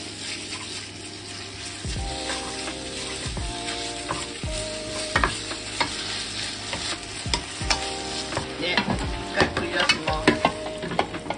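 Thinly sliced pork frying in oil in a nonstick pan, a steady sizzle, with a wooden spatula stirring the meat and clicking against the pan; the clicks come thicker near the end.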